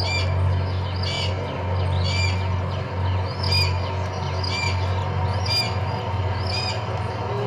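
Red-tailed hawk calling again and again, short high calls about once a second, over a steady low hum. The calls are the mother hawk crying out after her chick's death.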